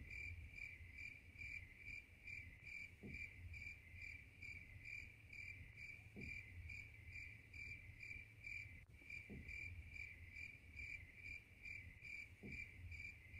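Faint cricket chirping, evenly spaced at about three chirps a second with a brief break midway: the stock 'crickets' effect for an awkward silence. A soft low blip comes about every three seconds.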